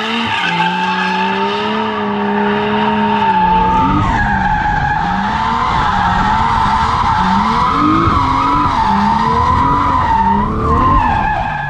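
A car engine revving up and down under a long, warbling tyre squeal, as a car slides through a drift.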